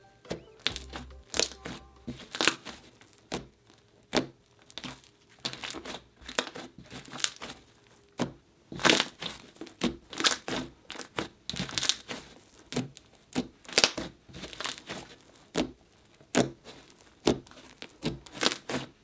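Crunchy, 'sizzly' icy-textured slime being kneaded and pressed by hand, crackling and popping irregularly, with a louder pop about every second.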